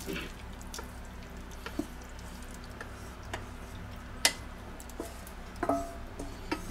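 Wooden spatula scraping meat out of a stainless steel pot into a pot of broth: scattered light clicks and knocks over a low steady hum, with one sharp knock about four seconds in and a short ringing clink of metal against the pot rim near the end.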